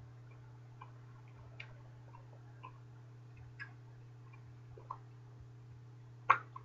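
Faint, irregular wet clicks and smacks of a mouth chewing a large wad of bubble gum, over a steady low hum, with a sharper snap near the end.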